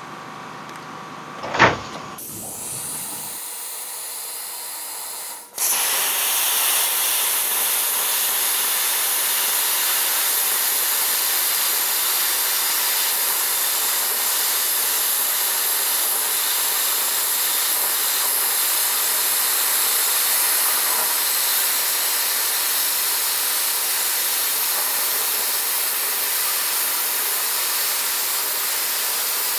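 A 40-amp plasma cutter cutting through three stacked 1/8-inch steel plates at once, with the loud, steady hiss of the arc and air jet. The hiss starts suddenly about five seconds in, after a sharp knock and a quieter hiss.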